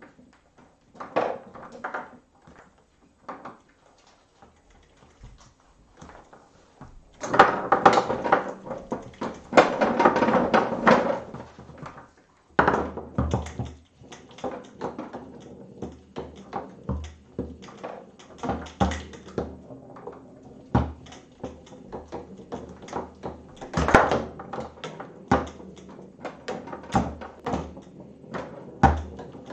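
Foosball table in play: the ball and the steel rods clack and knock against the plastic figures, walls and rod bumpers in irregular sharp knocks. A busier run of rattling comes about a quarter of the way in, and a single loud knock comes about four-fifths of the way through.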